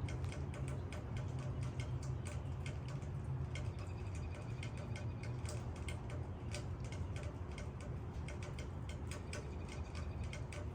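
Raindrops falling on leaves: a dense, irregular run of single drop ticks over a steady low rumble of rain.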